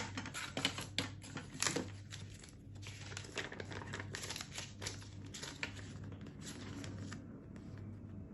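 Paper rustling and crinkling as a folded warranty and safety leaflet is opened and its pages handled, in quick irregular bursts that thin out after about seven seconds.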